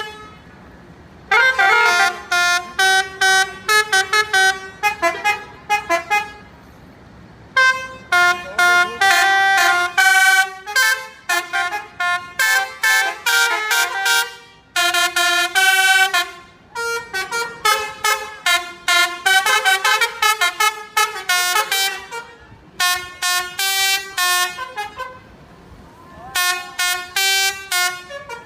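Indonesian bus 'telolet' basuri multi-tone air horns playing quick melodic tunes, loud, in phrases of rapid short notes with pauses of a second or two between them.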